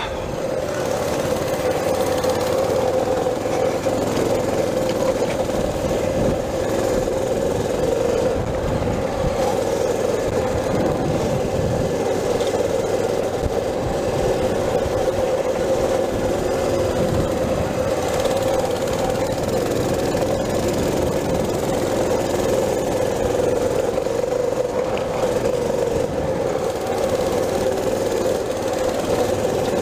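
Mini bike engine running at a steady speed while the bike rides along a rough dirt trail, its pitch holding nearly constant throughout.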